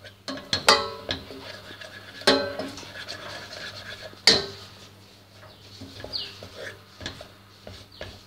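A utensil scraping and knocking against a stainless steel pot while stirring a thick soap mixture, with several sharp metallic clanks. The loudest clank comes about four seconds in.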